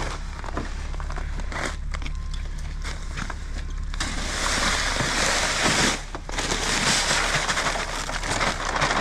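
Bagged rock salt being emptied into a plastic salt bin: a few seconds of bag rustling and clicks, then a dense hiss of pouring grains from about four seconds in, breaking off briefly near six seconds and resuming. A steady low hum runs underneath.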